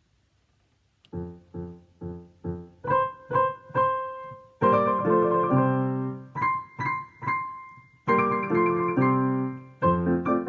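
Digital piano playing a four-hands duet, one part played live over the other part's recording. After about a second of silence come four repeated low chords about half a second apart. Higher melody notes join around three seconds in, and the music grows fuller from about four and a half seconds.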